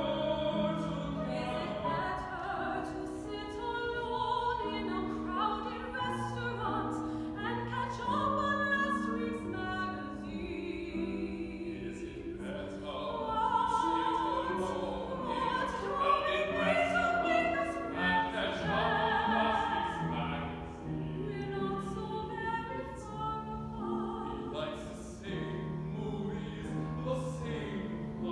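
A woman singing in operatic style with piano accompaniment, her voice holding long notes with vibrato.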